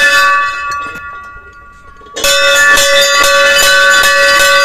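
Hanging brass temple bell struck once and left ringing with several steady tones that slowly fade. About two seconds in it is struck hard again, then rung over and over, several strikes a second, keeping up a loud continuous ring.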